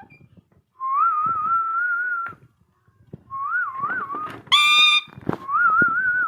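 Whistling in three long phrases with a warbling pitch. Between the second and third phrase there is a brief shrill call, typical of an Indian ringneck parrot.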